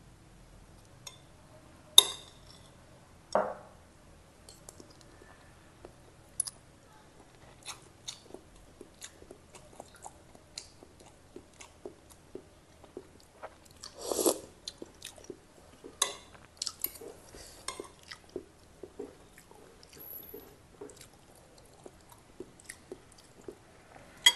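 Close-miked chewing and lip smacking of a person eating a mouthful of rice and fish from a sour soup. Many small wet ticks are broken by a few louder sharp sounds, the loudest about two seconds in and a longer one about fourteen seconds in.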